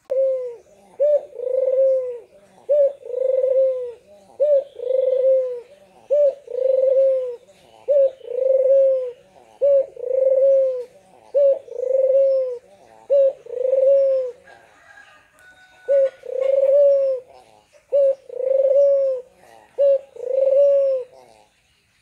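White Barbary dove (puter) cooing over and over, about a dozen two-part coos, each a short note followed by a longer rising-and-falling one, with a brief break about two thirds of the way through.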